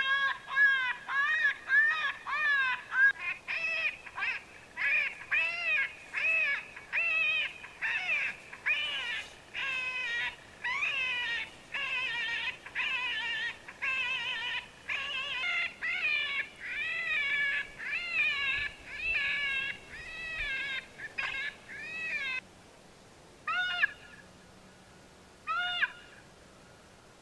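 Predator call playing high, wavering animal distress cries for coyote calling: a quick series of calls, each rising and falling in pitch, about two a second, breaking off about 22 seconds in, then a few single cries near the end.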